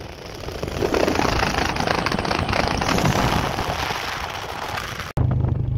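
Highway traffic: a car passing close by, its tyre and road noise swelling about a second in and fading away. Near the end the sound cuts off suddenly and gives way to a steady low hum.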